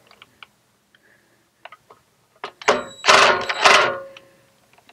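Cordless driver with a Torx bit running in two short bursts about three seconds in, backing out a Torx screw. Before them come a few light clicks.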